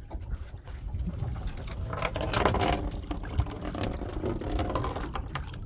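Steady low rumble of wind and water around a small boat, with some water splashing as a boga is slipped back into the river by hand.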